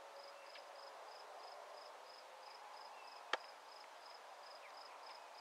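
A cricket chirping steadily, a short high chirp repeated a few times a second over faint outdoor hiss. A single sharp click sounds a little over three seconds in.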